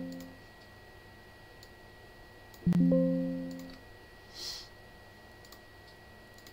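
Windows system dialog chime, a soft piano-like tone that dies away over about a second, heard twice: one already fading at the start and another about three seconds in. A few faint mouse clicks fall between them.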